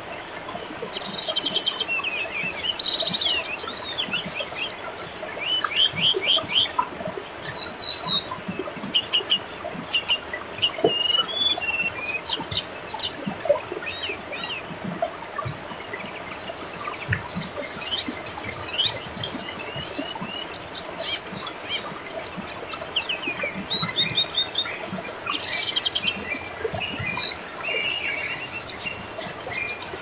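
Several birds chirping and singing in quick runs of high notes and trills over the steady burble of a flowing river.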